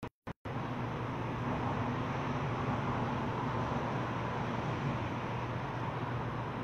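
Steady outdoor background rumble and hiss with a constant low hum. The audio briefly drops out twice in the first half second, then runs unbroken.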